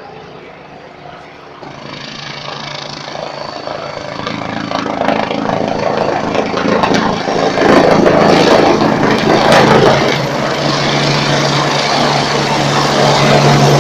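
A helicopter coming in to land. Its rotor and engine noise grows steadily louder, peaks about eight to ten seconds in, and carries a steady low hum with a thin high whine above it.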